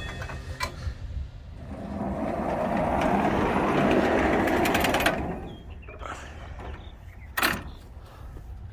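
Portable band sawmill's engine running steadily at idle, with a rushing mechanical noise that swells and fades over a few seconds in the middle and a single sharp knock near the end.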